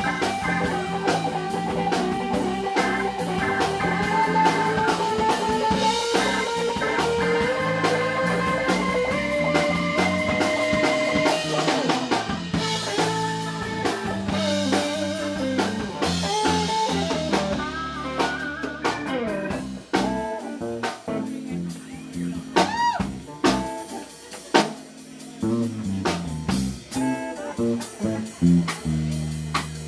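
Live band with a Hammond B-3 organ, electric guitar, bass and drum kit playing. Long held notes and chords over the first half give way to a sparser, quieter passage in the last ten seconds, with sharp drum hits standing out.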